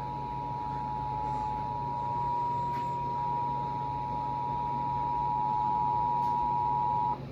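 Emergency Alert System two-tone attention signal: two steady tones sounded together, cutting off abruptly near the end. It heralds an emergency broadcast, here a National Weather Service severe thunderstorm warning.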